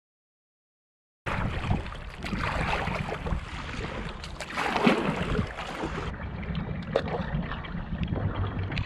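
Silent for about the first second, then wind buffeting the microphone and water splashing and lapping around a kayak on a choppy pond, with a louder splash about five seconds in.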